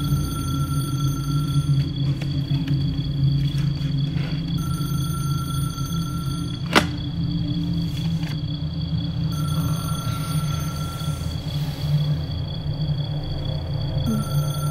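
A telephone ringing in repeated rings of about two seconds each, four times, over a steady low hum. About halfway through there is one sharp tap, as a hand comes down on the bedside clock radio.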